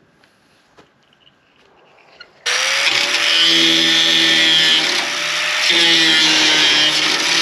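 A few faint clicks, then about two and a half seconds in a corded electric angle grinder comes in loudly, cutting corrugated metal roofing: a steady high whir over a harsh grinding hiss, its pitch shifting briefly about halfway through.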